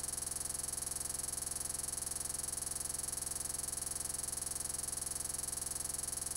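Steady electronic hiss and buzz with a high-pitched whine over it, never changing: noise from a corrupted or stalled recording, not a sound in the room.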